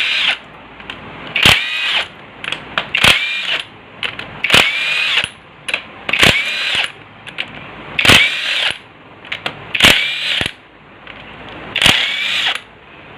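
A handheld power driver with an 8 mm socket bit undoing the bolts of a Royal Enfield's clutch-side engine case cover. It makes about eight short whirs, each rising in pitch, with small metal clicks between them.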